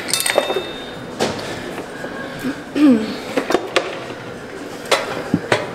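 Gym equipment being handled: scattered sharp knocks and clicks, about half a dozen, as a lifter reaches up to take the bar of a pulldown machine.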